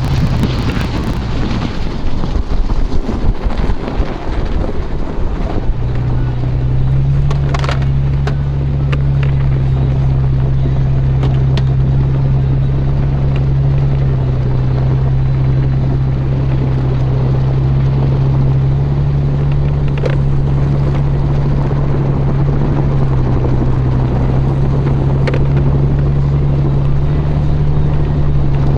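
Toyota FJ Cruiser's V6 engine running steadily while driving on tire chains, with a few sharp knocks along the way. The first few seconds are rougher and uneven before the drone settles, about six seconds in.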